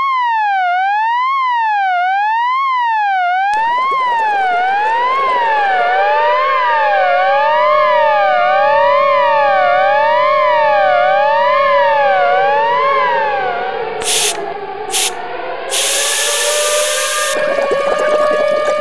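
Siren sound effect: a loud electronic tone sweeping evenly up and down in pitch about once a second. A few seconds in, a second siren tone joins it and slowly falls and rises. Near the end, short bursts of hiss cut in over steady siren tones.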